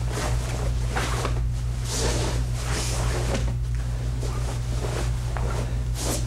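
Steady low electrical hum, with brief swishing rustles about once a second from a karate uniform and feet moving on a carpeted floor as a kata is performed.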